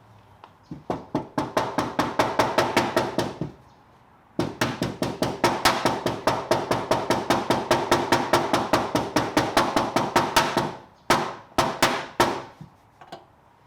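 Body hammer tapping rapidly on a car's sheet-metal fender, about five ringing taps a second, knocking down a high spot in the dent repair. Two long runs of taps with a short pause between, then a few scattered strikes near the end.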